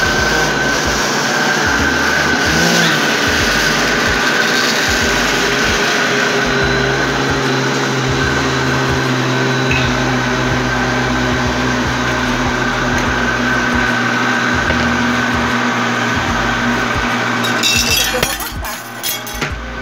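Countertop electric blender running steadily, mixing a batter of milk, eggs, oil and flour; it stops near the end, followed by a few light knocks.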